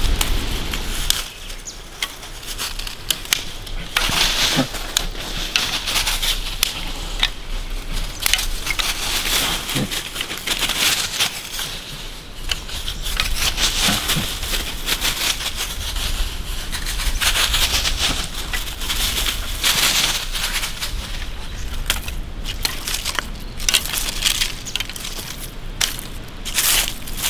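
Dry sticks snapping and clattering as they are broken by hand and stacked into a teepee of kindling, with dry fallen leaves crunching and rustling; many sharp cracks at irregular intervals.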